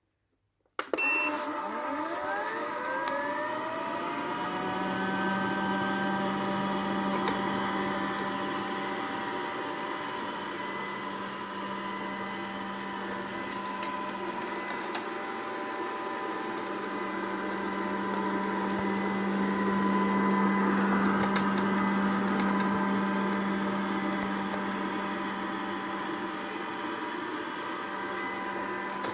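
Robot vacuum cleaner starting up: a short beep, then its motors spin up with a rising whine and settle into a steady whir, with a low hum joining about four seconds in.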